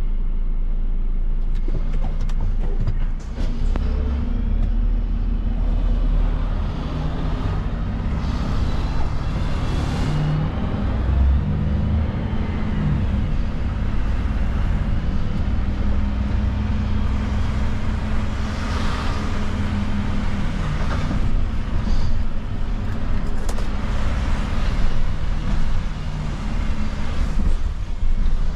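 Renault refuse truck's diesel engine running, heard from inside the cab as the truck drives slowly, its low note shifting up and down as it pulls away and slows. Short clicks and knocks come now and then.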